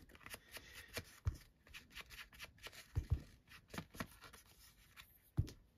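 Hands handling paper and card on a craft desk: light rustling, scratching and small clicks, with a few soft thumps as pieces are pressed or set down.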